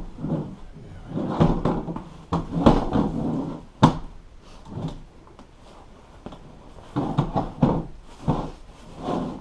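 Staples being pried out of a boat seat's plastic base: irregular bursts of scraping and creaking, with one sharp snap nearly four seconds in.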